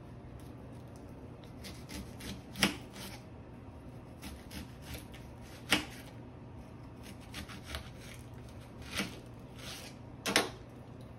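Kitchen knife slicing an onion: irregular soft cuts, with four louder knocks as the blade strikes through.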